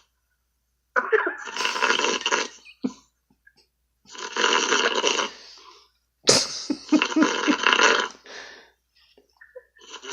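A man snoring heavily, heard over a Skype call: three long, rasping snores about three seconds apart, each about two seconds long.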